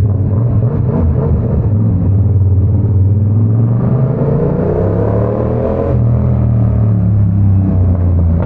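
Yamaha R7's 689 cc parallel-twin engine running under way, a steady low hum that rises in pitch between about four and six seconds in as it accelerates, then drops back.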